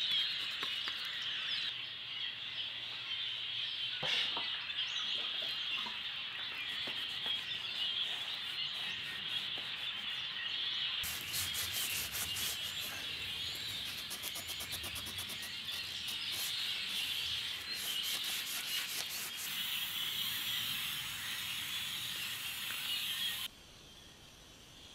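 A paintbrush scrubbing rust-converter onto the rusty steel tube of a Land Rover Series 1 rear axle, then a cloth wiping the axle in quick repeated strokes, with birds chirping behind. The rubbing stops shortly before the end.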